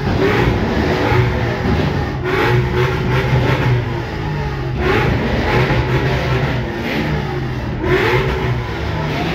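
Car engines revving and accelerating past one after another, their pitch rising and falling, with a fresh swell every two to three seconds.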